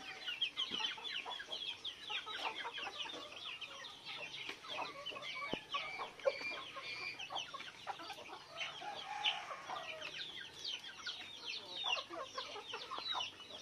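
A flock of native chickens clucking and calling as they crowd in to feed: many quick, high, overlapping calls.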